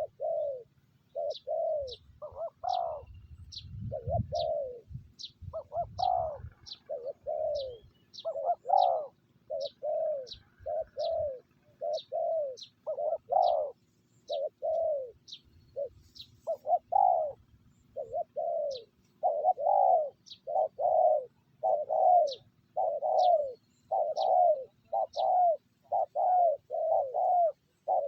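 Spotted doves cooing over and over in quick runs of short coos, with thin, high chirps between the coos. A low rumble sounds briefly early on.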